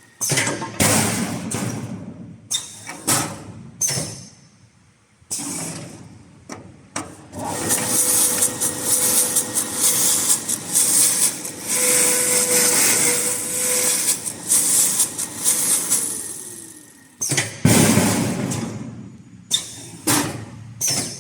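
Automatic sanding machine sanding turned wooden staircase parts: a hissing abrasive noise that comes and goes in bursts, with one long stretch from about seven to sixteen seconds in, over a steady motor hum that winds down near the end of that stretch.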